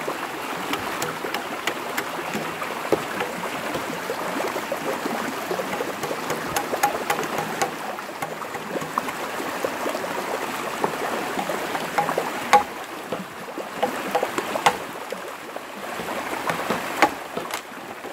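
Stream water rushing steadily, with light scraping and knocking of a machete blade cutting a rectangular opening into a green bamboo water pipe. A few sharper knocks come in the second half.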